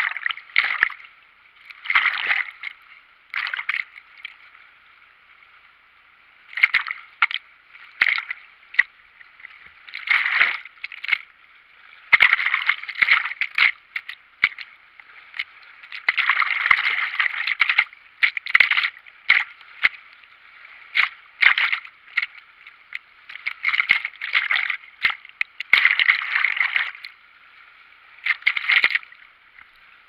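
Fast-flowing river water splashing and sloshing over a camera held at the water surface, in irregular bursts over a faint steady rush of water.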